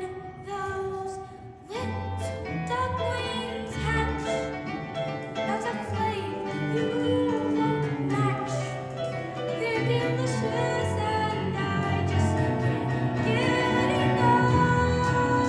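Music with a singing voice over instruments. The music drops briefly about a second in and comes back in just under two seconds in.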